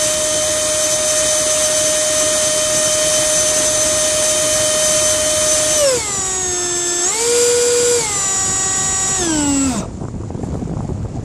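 64 mm electric ducted fan with a 4200 kV motor on a homemade RC plane, whining steadily at high throttle. About six seconds in it is throttled down, briefly up again, then down and cut off suddenly, leaving only wind noise on the microphone.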